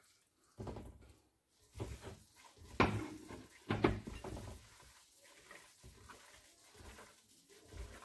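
Ground beef being pushed off a plate into a mixing bowl with a slotted spatula, with a few sharp knocks of spatula and plate against the bowl, the two loudest about three and four seconds in. Then softer, quieter sounds of the meat mixture being kneaded by hand.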